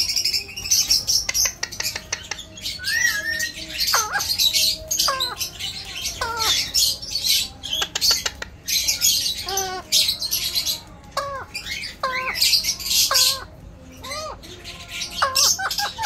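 Alexandrine parakeet calling in a string of short calls: noisy screeches and quick whistled notes that swoop up or down in pitch, with short pauses between them.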